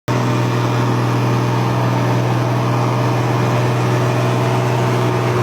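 Tractor engine running steadily, a constant low hum with no change in speed.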